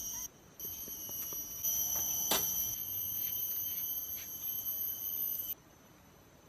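A steady high-pitched drone of forest insects that cuts off suddenly near the end. A few faint clicks run through it, with one sharper knock about two seconds in.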